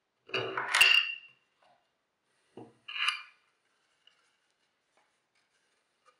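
Small metal hardware, a washer and bolt, clinking as it is fitted into a wooden jig, along with knocks of the pine jig against the workbench as it is picked up and turned over. There are two short bursts, about half a second in and about three seconds in, and the first is the louder, with a brief metallic ring.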